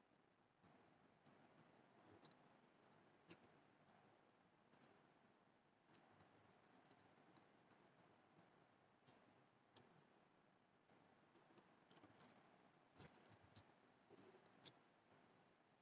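Near silence: faint room hiss with scattered small, sharp clicks and ticks at irregular intervals, a few bunched together near the end.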